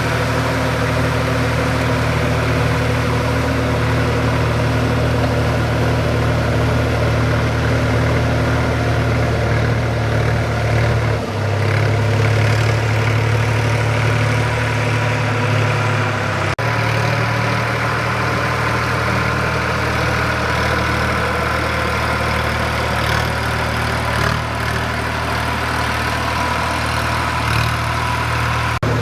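Sonalika DI 745 III tractor's three-cylinder diesel engine running steadily. Its tone changes abruptly about eleven seconds in and changes back about five seconds later.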